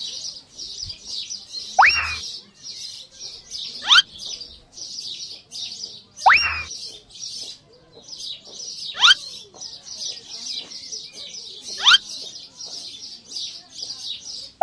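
Birdsong: a steady chorus of fast, high chirps, with a loud rising whistle call repeating about every two to three seconds.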